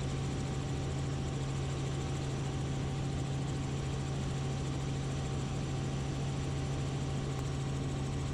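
Robinson R44 Raven II helicopter in cruise flight, heard from inside the cabin: the steady drone of its six-cylinder Lycoming engine and rotors, unchanging throughout.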